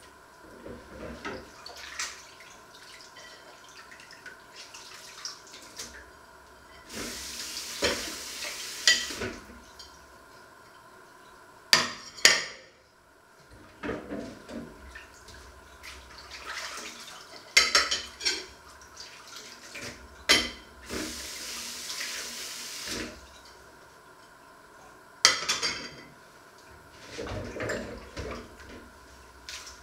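Dishes being washed by hand in a stainless-steel kitchen sink: plates and utensils clink and clatter at intervals. The tap runs twice for a couple of seconds each time.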